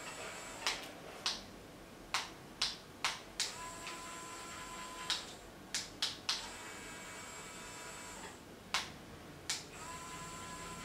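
Sharp irregular clicks, roughly one or two a second, over a faint steady high whine. Twice a steady hum joins in for a couple of seconds: about four seconds in, and again near the end.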